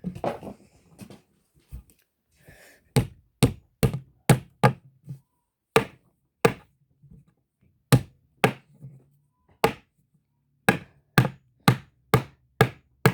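Repeated sharp knocks in short runs, about two or three a second, from something being banged to work a stuck slime charm loose.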